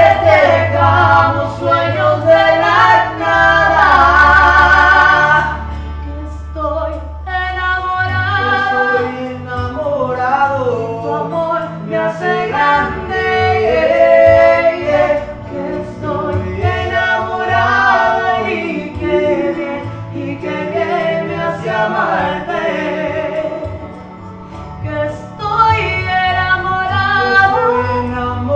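A man and a woman singing a Spanish-language love ballad as a duet, over a backing track with long steady bass notes.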